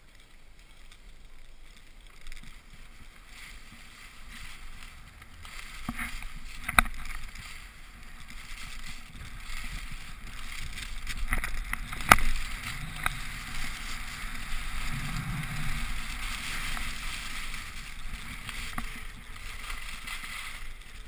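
Skis running on snow: a steady hiss that grows louder as the skier gets moving and picks up speed, with sharp knocks about 7 and 12 seconds in.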